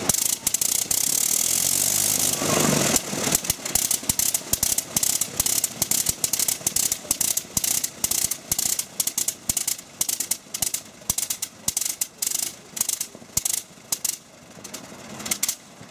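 1905 Gnome Omega seven-cylinder rotary aircraft engine running on a test stand, its cylinders and propeller spinning together. It gives a steady rush for about the first three seconds, then fires in uneven, irregularly spaced pops that grow fainter toward the end.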